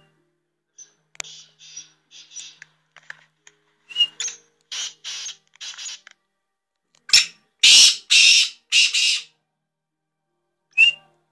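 Young black francolin calling: a series of harsh, grating high notes in short phrases, loudest as four notes in quick succession about two thirds of the way through, with short sharp whistled notes near the start, about four seconds in and near the end.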